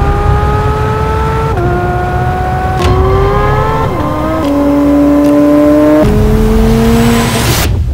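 Sports car engine accelerating hard through the gears, its pitch climbing and then dropping at each of about five upshifts. Near the end a whoosh swells and then cuts off suddenly.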